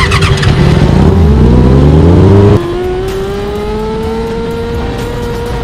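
Sprint car engine heard from the cockpit, revving up with rising pitch for about two and a half seconds as the car accelerates onto the dirt track, then suddenly quieter as the throttle eases, running steadily with the pitch creeping up.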